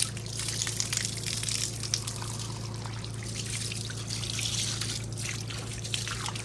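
Water trickling and splashing steadily, with small irregular spatters, over a steady low hum.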